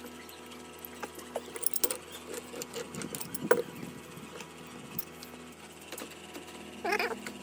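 Small metal parts of a hydraulic crimping tool being handled and worked on: scattered light clicks and clinks, with one sharper knock about halfway through and a brief squeak near the end.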